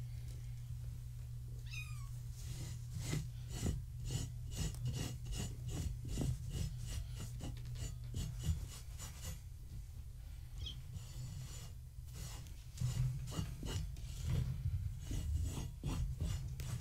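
Kittens scrabbling and scratching in quick runs of rasping strokes as they claw and scramble, in two spells with a lull between, and a couple of short kitten mews. A steady low hum runs underneath.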